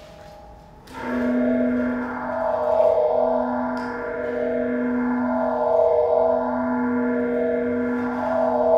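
A live improvised ambient drone enters suddenly about a second in. It holds several steady, ringing, gong-like tones that swell and fade in slow pulses, with a sweeping, phasing shimmer over them.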